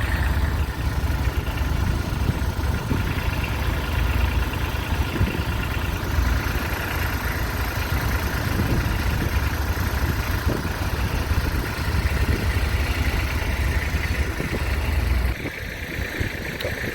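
A vehicle engine running steadily with a low rumble, which drops away near the end.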